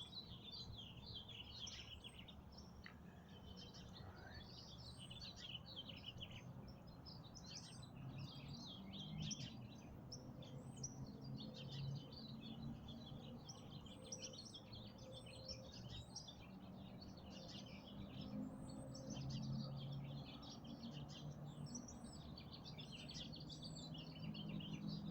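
Many small songbirds chirping and twittering continuously in a morning chorus, with a low droning hum underneath.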